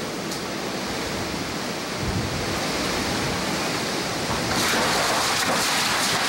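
Hurricane wind and heavy rain heard from inside a house whose roof is torn open, a steady rushing noise. It grows louder about two seconds in and again about four and a half seconds in, when a dense crackle of rain joins it.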